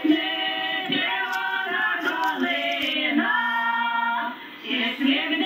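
A woman's singing voice in a song, with long held notes and a short break about four and a half seconds in.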